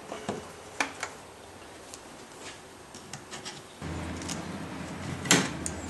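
Scattered light clicks and rubbing from plastic clips and hose fittings on a car's air cleaner box and intake hose being popped loose by hand. A low steady hum comes in about four seconds in.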